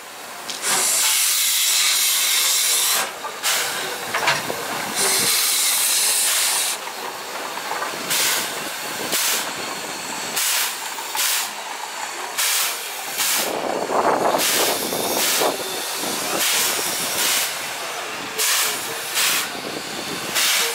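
JNR Class C11 steam locomotive letting off two long hisses of steam, then chuffing slowly as it moves, with its exhaust beats coming roughly once a second.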